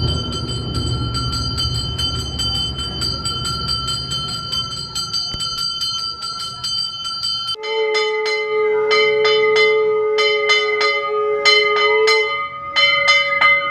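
Temple bell rung rapidly and continuously for evening aarti, its strokes ringing together. About halfway through, a conch shell is blown in one long steady note while metallic strokes go on, and near the end a tone rises and falls briefly.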